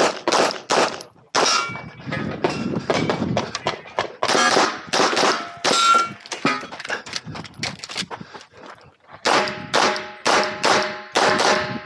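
Rapid 9 mm pistol shots from a Glock 26X, fired in quick strings with short pauses, with steel targets ringing after several hits, most clearly in the last couple of seconds.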